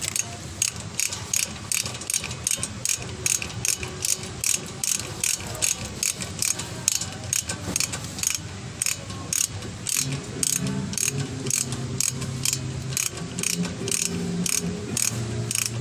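Ratchet wrench clicking steadily, about three clicks a second, as a bolt on the brake caliper is tightened. A low hum joins about ten seconds in.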